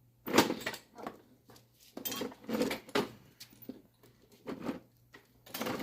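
Metal tyre levers clanking and scraping against a dirt-bike wheel rim as the tyre bead is worked on. There are a series of irregular clanks, the loudest just after the start.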